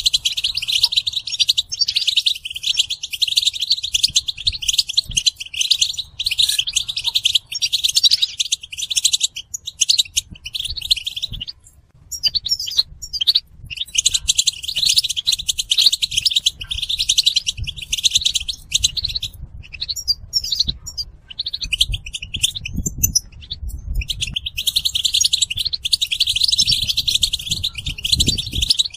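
European goldfinches twittering and chattering in a dense, continuous stream of rapid, high calls and song fragments. The twittering thins out briefly twice. This is a mating-call and readiness chorus used to stimulate a male goldfinch into singing.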